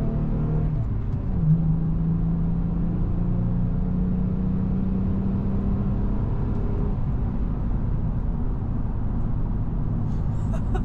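Vehicle engine pulling hard, working up to highway speed, heard from inside the cabin over a steady road rumble. The engine note jumps up about a second and a half in and then holds steady.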